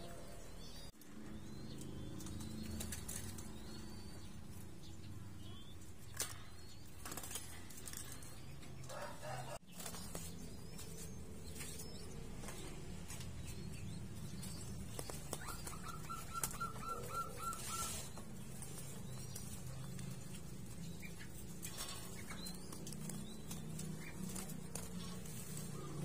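Wings fluttering and feathers rustling as a young zebra dove chick begs and is crop-fed by a ring-necked dove, with scattered soft knocks and a steady low hum underneath. A little past the middle comes a short, fast pulsing chirp.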